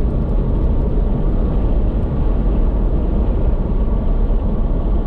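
Steady low road and engine noise of a car being driven at cruising speed, heard from inside the cabin.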